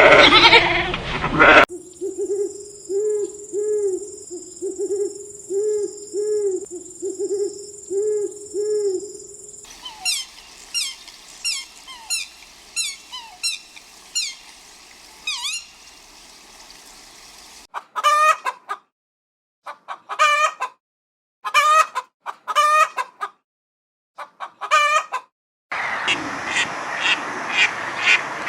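Farmyard chickens calling in a run of short clips that cut abruptly from one to the next: repeated low clucks, then a stretch of rapid high peeping, then short loud calls in clusters with silent gaps between them.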